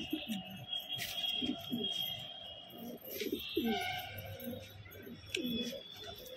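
Domestic pigeons cooing: many short, low coos in a row, each falling in pitch.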